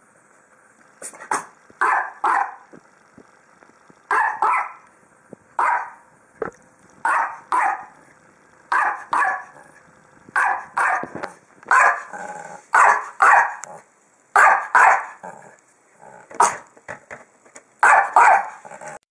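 Small dog barking over and over, mostly in quick pairs of barks about every second or so, with a faster run of short barks near the end.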